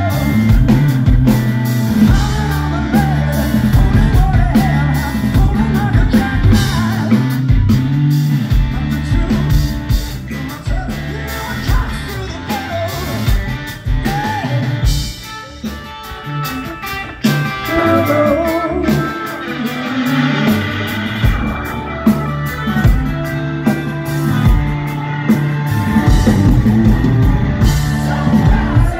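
Live rock band playing: a singer over electric guitar, bass and drum kit. About halfway through the band drops back for a few seconds, then the full sound returns.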